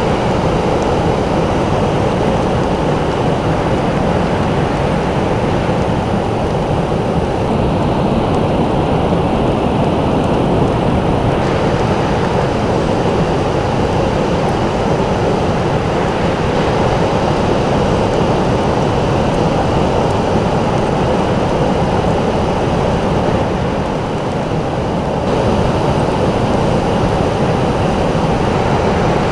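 Ocean surf on a sandy beach: a steady, deep rushing noise with no distinct single waves, dipping slightly for a moment late on.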